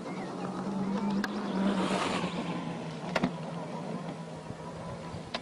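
Electric motorcycle with an in-wheel hub motor riding past and away over grass: a steady low motor hum, with a rush of tyre and air noise that swells to its loudest about two seconds in and then fades. Three sharp clicks are heard along the way.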